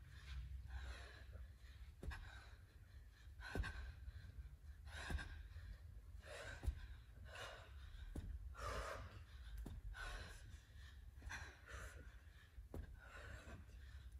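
A woman breathing hard with exertion, short forceful breaths in and out about once a second, as she works through kettlebell deadlifts. A few light knocks come between the breaths.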